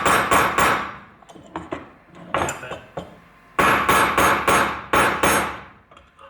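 Hammer blows on a metal part of an emergency brake handle assembly, driving it through its holes: a quick run of strikes, about four a second, ends shortly after the start, a few lighter knocks follow, and a second run of about seven strikes comes past the middle.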